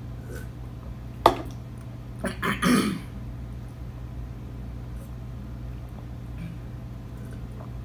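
A person coughing and clearing his throat, with dry French fries caught in it. There is one sharp cough a little over a second in, then a short run of throat-clearing coughs around two to three seconds in. After that only a low steady hum remains.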